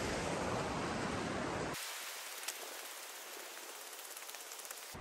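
River rapids rushing as a steady noise, which cuts off abruptly about two seconds in to a quieter, thin hiss with faint ticks.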